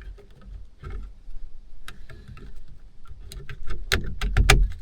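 Hands working a plastic car ceiling light housing and its sensor into place: a run of small plastic clicks and taps, coming thicker and louder a little past the middle, over a low rumble.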